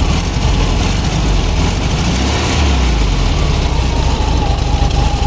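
VW Beetle's air-cooled flat-four engine running steadily. A thin, steady higher tone joins about four seconds in.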